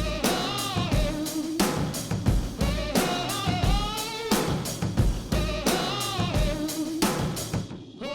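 Background music with a steady drum beat and a melodic line over it, dropping away near the end.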